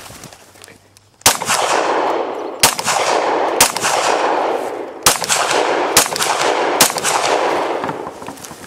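Six pistol shots from a Glock handgun, fired at an uneven pace about a second apart, starting about a second in; each shot is followed by a long echo rolling back off the hillside.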